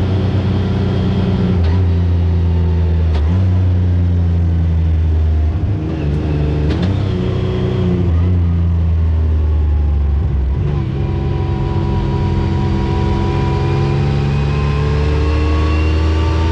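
Side-by-side UTV engine running while driving on the road, its pitch stepping up and down several times as the speed and throttle change.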